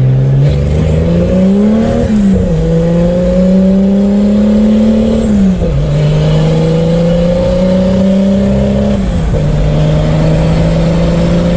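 Turbocharged Chevrolet Opala inline-six engine pulling through the gears. The pitch climbs and drops sharply at each of three upshifts, about two, six and nine seconds in.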